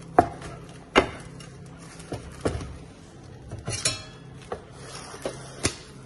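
Cling film being pulled off its roll and wrapped around a ceramic plate, with the plate and roll knocking and clattering on a cutting board and steel counter. There are several sharp knocks and a longer crackle of film just before four seconds in.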